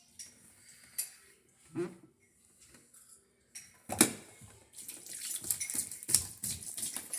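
Water splashing and dishes or the dishwasher rack clinking as a small pet splashes about in water pooled inside an open dishwasher. There are a couple of knocks at first, a sharp clatter about four seconds in, then a busy run of splashing and clinking.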